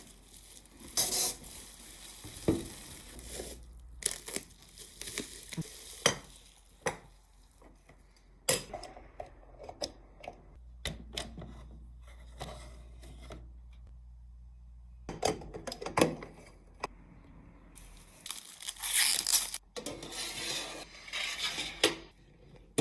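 Small clinks and taps of miniature kitchenware being handled, with bursts of crinkling and rustling near the start and again near the end. A faint low hum runs for a few seconds in the middle.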